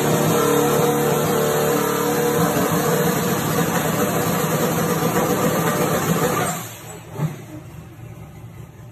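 Turbocharged drag car's engine running loudly and steadily, then shut off about six and a half seconds in. A single knock follows about a second later.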